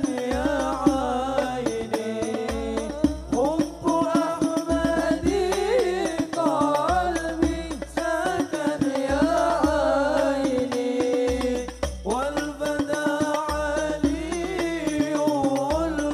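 A hadroh ensemble performing sholawat: men singing a devotional melody into microphones over hand-struck rebana frame drums and deep bass drum beats in a steady rhythm.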